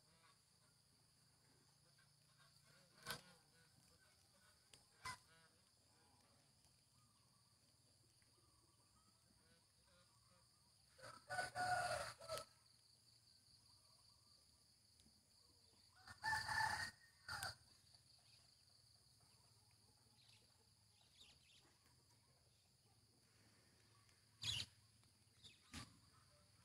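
Steady high insect chirring, with two louder drawn-out poultry calls, each about a second and a half long, around 11 and 16 seconds in. A few sharp clicks are heard near the start and near the end.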